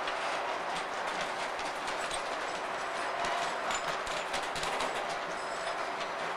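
A freight train of enclosed wagons rolling past, its wheels clicking rapidly over the rail joints over a steady rolling rumble as the last wagons go by.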